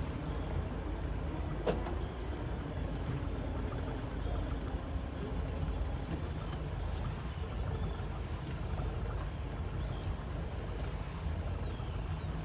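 Steady low rumble of idling engines at a fishing harbour, with a single sharp knock about a second and a half in.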